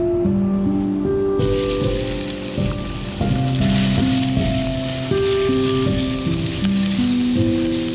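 Raw ground beef sizzling in hot oil in a stainless steel pan, the hiss starting suddenly about a second and a half in as the meat goes in, and carrying on as it is broken up with a spatula. Soft background music with sustained notes plays underneath.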